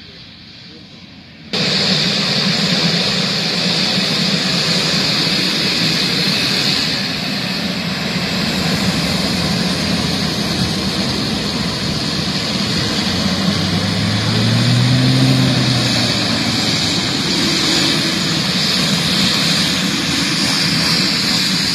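Twin-turboprop Beechcraft King Air taxiing close by: a loud, steady propeller drone under a high turbine whine. It comes in suddenly about a second and a half in, after a quieter start, and the low drone briefly rises and falls in pitch about two-thirds of the way through.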